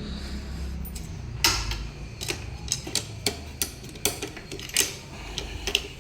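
Irregular sharp metallic clicks and clinks, about a dozen, from hand tools and small metal engine parts being handled with the clutch cover of a motorcycle engine off. A low rumble underneath fades over the first two seconds.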